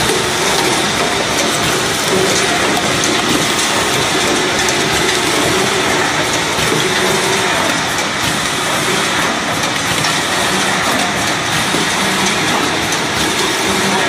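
High-speed eye drop filling, plugging and capping machine running: a steady mechanical clatter of turntables, indexing gears and capping heads, with fine rapid clicking.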